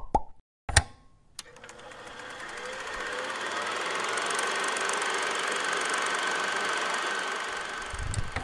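Sound-effect sting for an animated logo. A few sharp clicks come first, then a mechanical whirr with fast, even ticking swells up over a couple of seconds and holds steady, and a low thump lands near the end.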